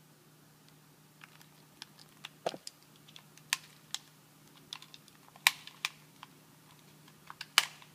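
Plastic parts of a PlayStation 3 controller clicking and tapping as they are handled, in irregular sharp clicks. The loudest come about five and a half and seven and a half seconds in.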